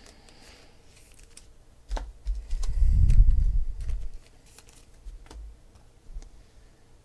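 Trading cards being handled on a tabletop: scattered light clicks and taps, with a low rumbling thump from about two and a half to four seconds in as a hand reaches across the table.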